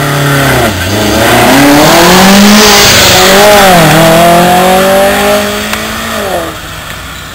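Simca 1000 Rallye-type rally car with a rear-mounted four-cylinder engine accelerating hard from a standing start. The engine's pitch climbs and drops sharply at two upshifts, about one and four seconds in, then the sound fades near the end as the car pulls away up the hill.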